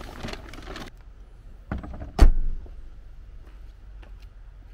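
Bags rustling in a car boot, then the tailgate of a Volkswagen Golf hatchback shut with one heavy thump about two seconds in.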